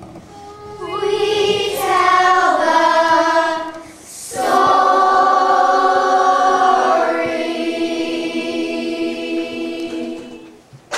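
Young cast singing together in chorus: a short phrase, a brief breath, then a long held final chord that fades out near the end.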